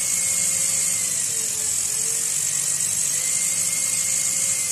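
Variable-speed angle grinder running unloaded near 3,000 rpm: a steady electric motor whine with a high hiss. Its pitch sags slightly in the middle and comes back up near the end.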